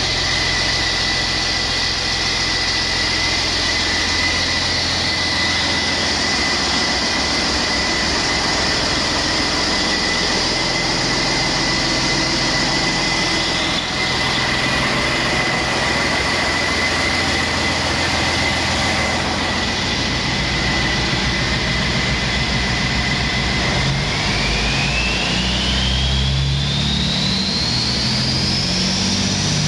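2000 Detroit Diesel Series 60 12.7-litre inline-six turbo diesel running at a steady idle, with a high turbocharger whine over the engine sound. About three-quarters of the way through, the engine picks up speed and the whine rises steadily in pitch.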